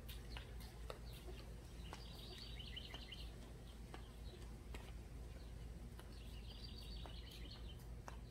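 A songbird singing two short, fast trilled phrases about four seconds apart, over a faint steady low outdoor background.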